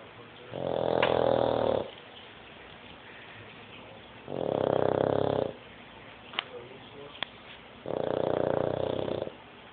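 A dog snoring, three long snores about three and a half seconds apart.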